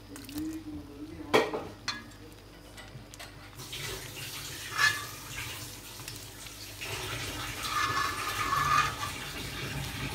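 Milk and cream poured from a steel pot into a hot pan of roasted semolina for suji halwa, making a steady watery rush that swells near the end. A steel ladle clanks twice against the pot before the pouring.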